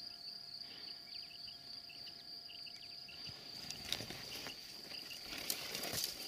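A steady high-pitched insect trill with short faint chirps over it. From about halfway in, rustling and a few sharp clicks grow louder.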